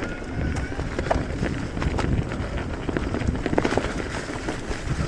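Electric mountain bike ridden along a dirt trail: steady rumble of tyres over the ground with irregular clicks and rattles from the bike, and wind noise on the microphone.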